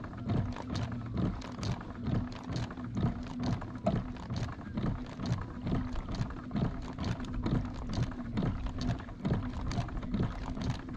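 Boat motor running steadily at trolling speed with a low hum, and a regular knocking about twice a second as water slaps the hull.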